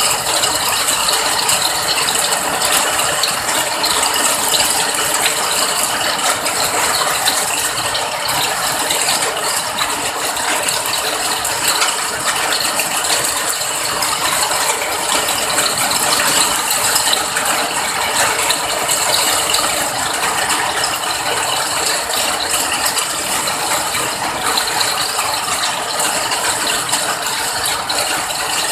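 Rain falling steadily in a dense, even patter of countless small drops, with no let-up and no other event standing out.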